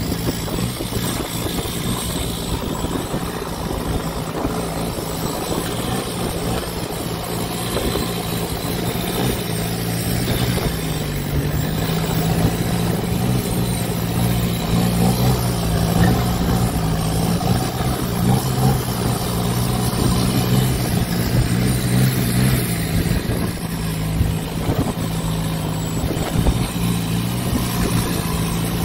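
Long-tail boat's engine running steadily underway, its pitch rising slightly about eleven seconds in, over the rush of water and wind.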